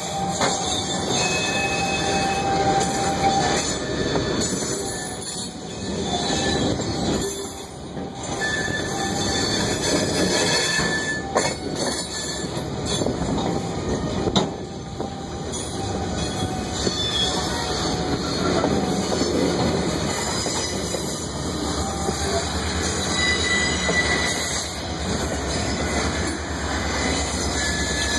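Freight boxcars rolling past close by, their steel wheels squealing against the rail in thin tones that come and go, with a couple of sharp clunks along the way. Near the end the low drone of an approaching diesel locomotive engine builds in.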